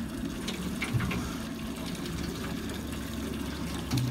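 A boat's engine running steadily with water sloshing against the hull, and two dull low knocks, about a second in and near the end.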